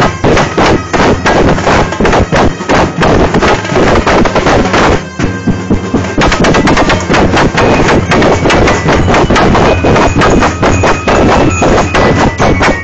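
A marching drum corps playing a fast, loud beat on bass drum and snare drums, the strokes coming thick and even. From about eight seconds in, a few high ringing notes sound over the drums.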